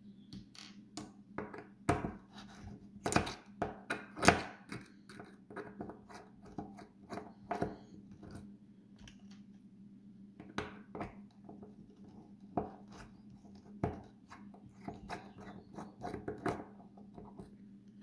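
A hex driver clicks and scrapes in the small metal screws of an RC crawler beadlock wheel, and tiny screws clink as they are set down on a wooden table. The clicks come at uneven intervals, the loudest about four seconds in, over a low steady hum.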